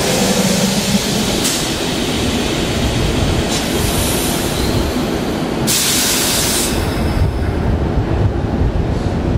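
Keihan electric train at a station platform: low underfloor rumble broken by several short bursts of air hiss, the longest about six seconds in. Near the end the car starts rolling away past the platform.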